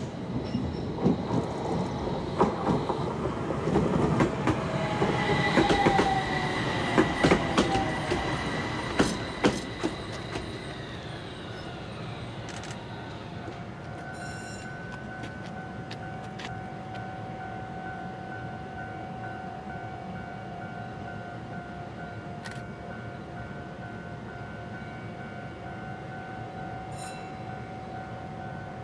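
Fukui Railway FUKURAM low-floor articulated tram pulling in, with clicks from the wheels over the rails and a high squeal as it brakes. Its electric motor whine falls in pitch as it comes to a stop about twelve seconds in. A steady two-tone hum follows while it stands, with an occasional click.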